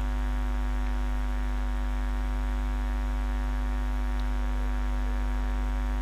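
Steady electrical mains hum in the recording, a low buzz with a stack of evenly spaced overtones that does not change.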